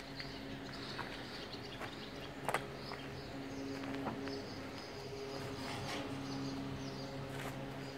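Outdoor farmyard background: small birds chirping over a steady low hum, with a few scattered clicks and knocks, the loudest about two and a half seconds in.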